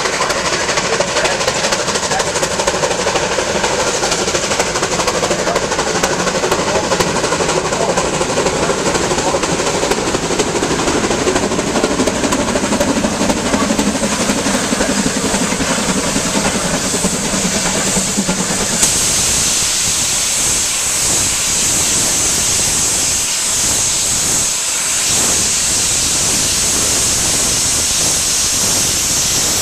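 Shay geared steam locomotive working past close by: quick exhaust beats and running-gear rattle under hissing steam. About two-thirds through the beats die away, leaving a loud steady hiss of steam.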